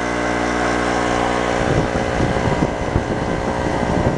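Harbor Freight Storm Cat 800-watt two-stroke generator engine running under the load of a window air conditioner. Its steady hum turns rough and uneven about a second and a half in.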